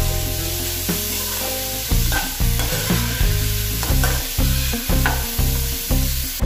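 Sliced onion, carrot and cabbage sizzling as they fry in oil in a kadai without added water, with a spatula stirring and scraping them around the pan. Background music with a steady beat plays underneath.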